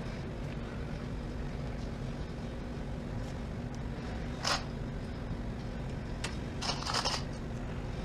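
Electric heat gun running with a steady low hum, with brief scrapes of headliner fabric being handled about halfway through and again near the end.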